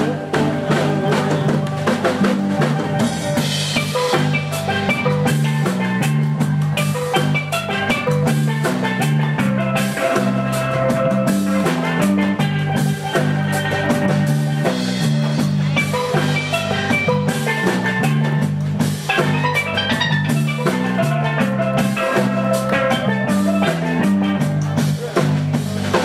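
A live band playing an instrumental break: a steel pan playing the melody in quick notes over an electric bass line and a drum kit.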